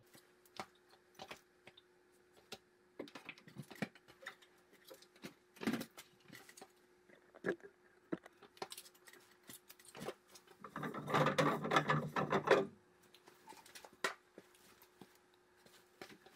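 Handling noise from setting a water-softener tank and its plumbing fittings in place: scattered clicks, knocks and light rattles of plastic and metal parts. A denser rubbing, scraping noise lasts about two seconds, about eleven seconds in. A faint steady hum sits underneath.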